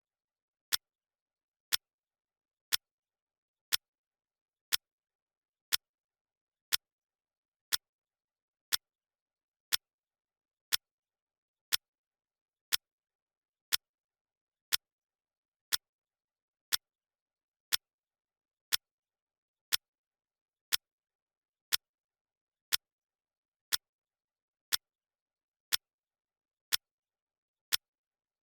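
Clock ticking sound effect: single sharp ticks, one per second, with silence between them.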